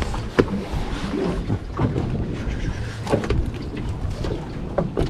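Steady low rumble on a small boat, broken by a handful of sharp knocks and thumps as a landing net holding a kingfish is handled on the deck.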